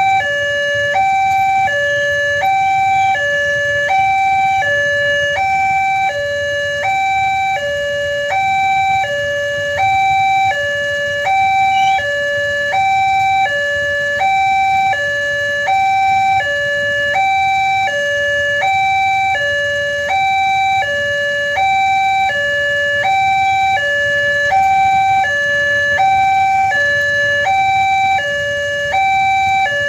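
Railway level-crossing warning alarm sounding continuously: an electronic two-tone signal alternating between a higher and a lower note, about one high-low pair per second, warning that a train is approaching.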